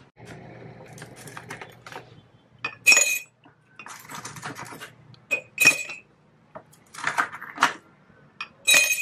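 Clinking and clattering of aluminium coffee capsules in a metal tin and glass jars being handled: repeated sharp clinks with a bright ring, loudest about three seconds in, near six seconds and again near the end.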